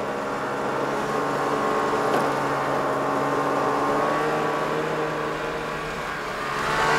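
Snowmobile engine running steadily as the machine drives along, getting louder near the end as it comes closer.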